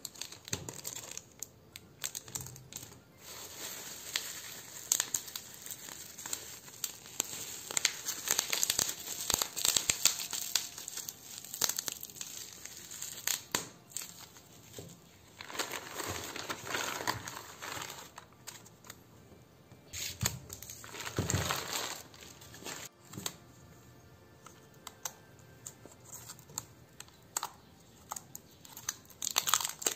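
Plastic packaging being handled and pulled open by hand: a plastic courier mailer and shrink-wrap crinkling and tearing in irregular rustles and crackles, with the loudest bursts a little past the middle.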